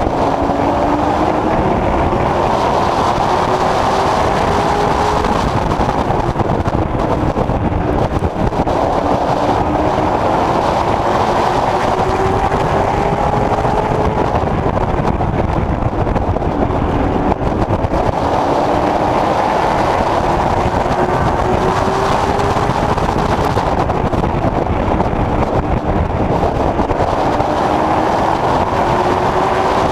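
Late Model Stock race car's V8 engine heard from inside the car at racing speed. Its pitch climbs along each straightaway and drops back as the driver lifts for the turns, about every seven to eight seconds, over steady wind and road noise.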